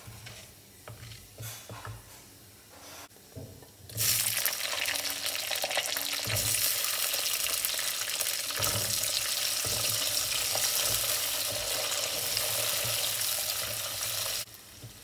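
Shallots and garlic frying in hot oil in a clay pot: after a few seconds of a spatula scraping and knocking around the pot, a loud, steady sizzle starts suddenly about four seconds in as they hit the oil, and cuts off shortly before the end.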